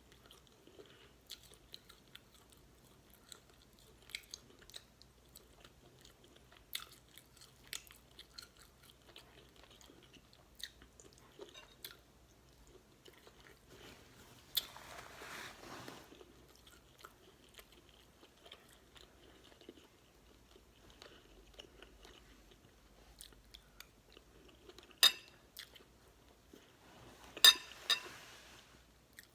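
Close-miked chewing and soft wet mouth clicks of someone eating beef stew and cornbread. A short rush of noise about halfway through, and a few sharp knocks near the end, the loudest sounds here.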